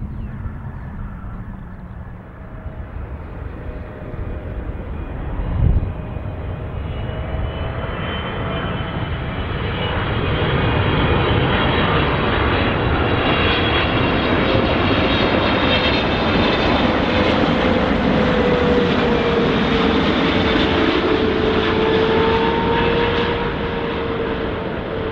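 Boeing 777-300ER on final approach, its GE90 turbofans' whine and rumble growing louder as it passes close by, with a steady tone that slowly falls in pitch. A single brief thump comes about six seconds in.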